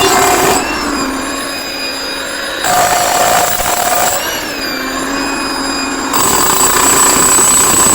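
Hilti TE 800 electric demolition hammer chiselling, a dense mechanical hammering noise, loud in three stretches with the tool easing off between them.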